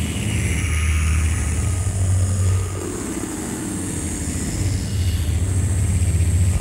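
Live electronic noise music: a loud, steady low drone with hissing noise above it, the drone dipping briefly about halfway through before coming back.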